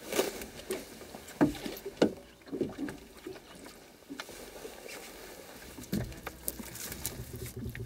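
Scattered knocks and thumps on an aluminum fishing boat as people shift about and handle a fish aboard, the sharpest in the first two seconds or so. A little past the middle, a low steady rumble sets in under further light knocks.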